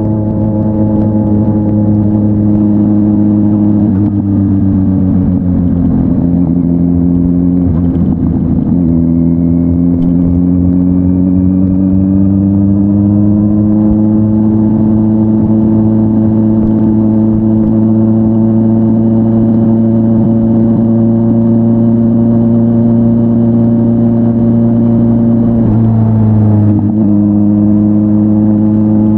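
Kawasaki Z900's inline-four engine through an SC-Project S1 aftermarket exhaust, heard riding along. The engine note drops about four seconds in, breaks briefly for a gear change near nine seconds, then climbs gradually and holds a steady cruise. There is another short shift near the end.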